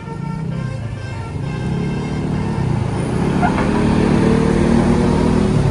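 The last notes of a multi-tone telolet horn tune fading out in the first second or two, while a tour bus's engine grows steadily louder as the bus draws near.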